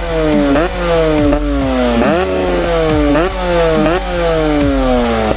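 HM motorcycle engine running loudly through an FMF Powercore exhaust. The engine note jumps up quickly and then sinks away slowly, over and over, about once a second.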